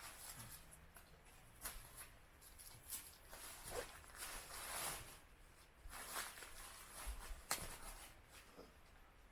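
Faint, irregular rustling and crunching: about a dozen short scrapes and crackles at uneven intervals, with a longer rustle around the middle.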